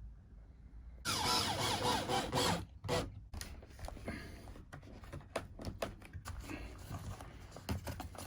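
A power drill runs for about a second and a half with a wavering whine, driving into wooden ceiling cladding, followed by a string of sharp knocks and clicks from handling the boards.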